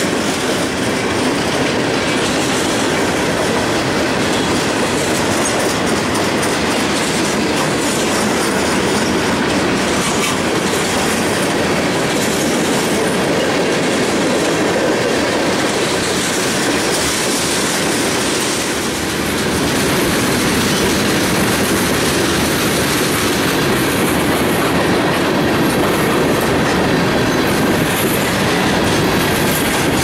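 Freight train rolling past at close range: the last of its diesel locomotives goes by at the start, then a long string of loaded covered hopper cars, wheels rumbling and clattering steadily on the rails.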